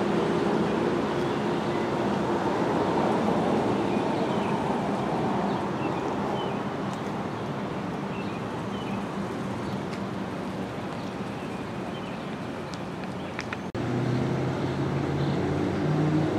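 Road traffic noise: a steady hum of passing cars and engines. About two and a half seconds before the end the sound breaks off abruptly and a louder engine hum takes over.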